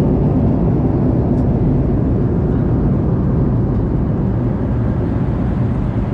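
Steady cabin noise inside a Boeing 737-800 in flight: an even, low rushing drone of the jet engines and airflow past the fuselage.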